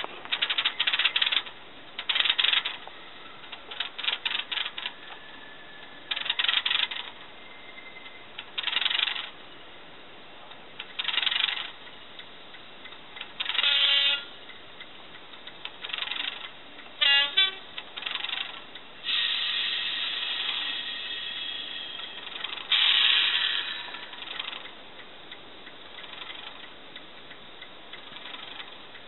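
Class 37 diesel locomotive sounds played by a Loksound V4 Micro DCC sound decoder in a Graham Farish N gauge model standing still: short separate clanks and bursts every second or two, a quick run of clicks, then a longer sustained stretch about two-thirds of the way through.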